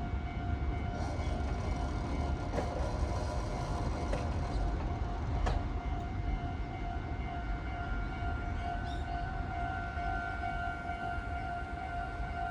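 Japanese railway level-crossing alarm ringing with a steady repeating tone while the crossing stays closed, over a low rumble. A sharp click about five and a half seconds in.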